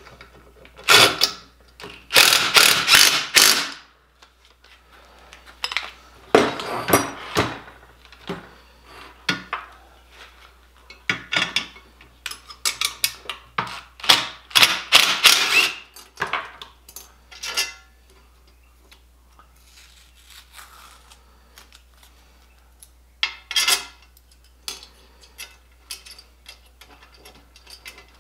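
Cordless DeWalt impact driver hammering bolts tight in several bursts, the longest lasting a few seconds, with lighter clicks and clinks of tools and hardware in between.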